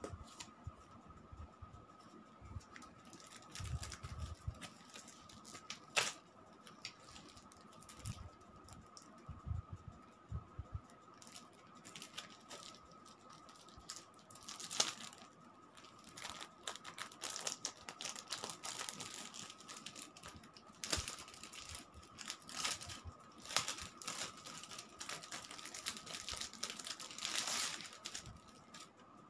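Handling and unpacking noises: a cardboard mailer being opened with dull knocks and scrapes, then clear plastic wrapping crinkling and tearing as it is peeled off a notebook. The sounds are irregular rustles, taps and clicks, busiest and crinkliest in the last half.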